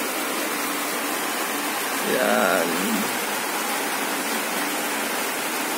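A steady, even hiss, with one short spoken word about two seconds in.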